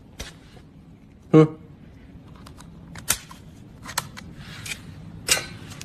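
Handling of the screwdriver bit and its removable magnetic ring: a few separate sharp clicks and light knocks of small parts, the loudest about a second and a half in.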